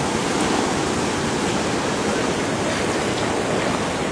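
Rain-swollen river rushing through and below a sluice gate: a steady, unbroken rush of churning white water with no distinct events.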